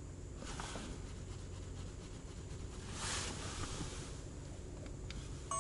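Quiet car cabin with a person shifting in the seat and reaching up: a soft rustle of clothing about three seconds in and a few small clicks near the end.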